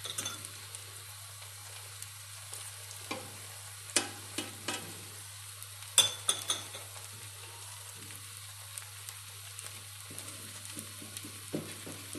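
Beaten egg frying in hot oil in a nonstick pan, a steady sizzle as the omelette cooks on its first side, with a few sharp clicks about four and six seconds in.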